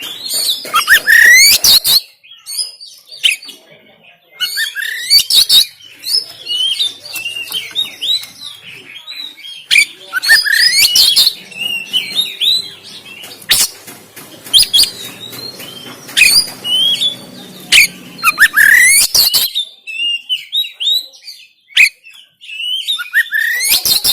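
Oriental magpie-robin (kacer) singing harsh, loud phrases: quick rising whistles and rapid chattering notes in bursts, with short pauses between them.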